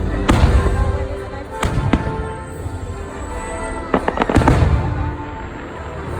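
Fireworks bursting over the show's music: a few sharp bangs near the start and a louder cluster of bangs about four seconds in, with the music playing steadily underneath.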